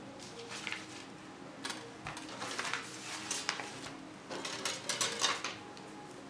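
A marker scraping along a metal ruler on paper, with the ruler and paper shuffled on a cutting mat: several short bursts of scratching and rustling.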